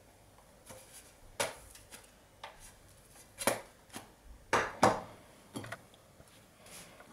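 Frying pan and spatula clattering: about seven short, sharp knocks at irregular intervals, the loudest a pair about four and a half to five seconds in, as the pan is handled on a portable electric hob.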